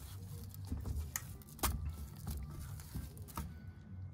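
Gloved hands pressing pepper-coated beef cheeks down in a stainless steel tray: quiet handling noise with three sharp ticks, over a low steady rumble.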